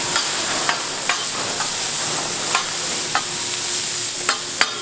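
Pork belly sizzling on a large iron griddle plate, a steady frying hiss with sharp clicks scattered through it, two loud ones near the end.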